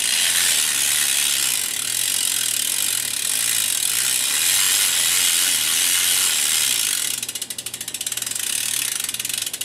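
Freshly cleaned BMX rear hub freewheeling as the back wheel is spun by hand: a really loud, rapid buzz of ratchet clicks that slows near the end into separate clicks as the wheel coasts down. The hub is this loud because it has been cleaned out.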